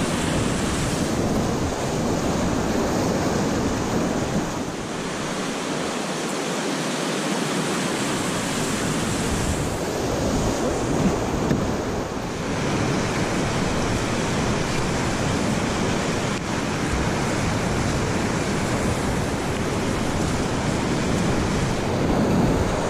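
River rapids, whitewater rushing and churning around an open canoe, a steady loud wash of water noise.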